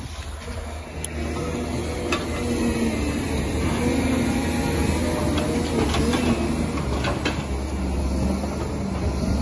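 CAT 930K wheel loader's diesel engine running under load as it pushes snow with its bucket: a steady low drone with a slightly wavering engine pitch and a few light clicks.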